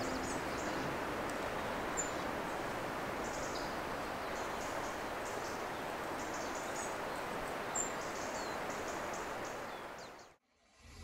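Outdoor ambience: a steady rushing noise with small birds chirping briefly now and then, fading out just before the end.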